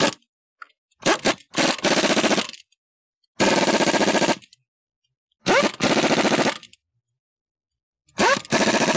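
Ingersoll-Rand 232TGSL half-inch air impact wrench hammering lug nuts tight through a 90 ft-lb torque stick. A short blip comes first, then four bursts of about a second each, each starting with a rising whine as the air motor spins up.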